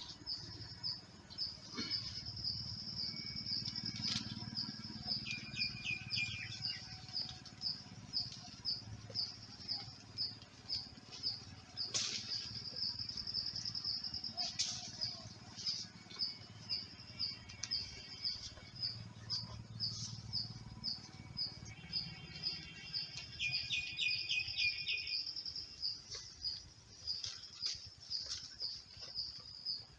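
Outdoor ambience of chirping: a high chirp repeated over and over without a break, with two short bursts of quicker bird trills, one about five seconds in and another near the end. A few sharp clicks stand out about twelve and fifteen seconds in.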